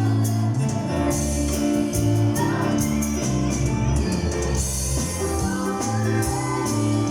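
Gospel music with singing, a steady beat and tambourine-like percussion.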